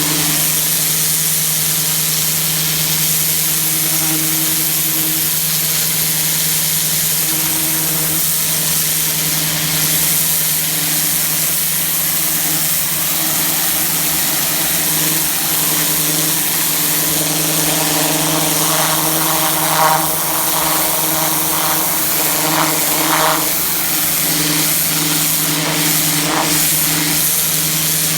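Pressure washer engine running steadily under the hiss of the high-pressure water spray hitting concrete.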